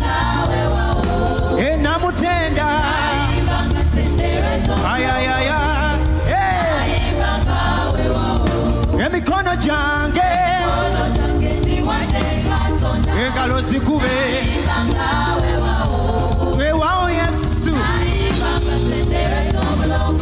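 Live gospel music: a male lead singer with backing vocals over a band with a steady beat and strong bass.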